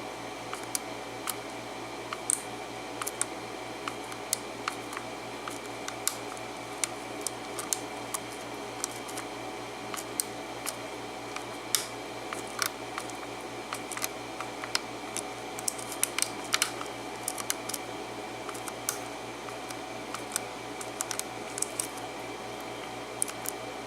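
Irregular small metallic clicks and ticks of a lock pick working the pin stacks of a Schlage key-in-knob lock cylinder, single-pin picking under tension, over a steady low hum.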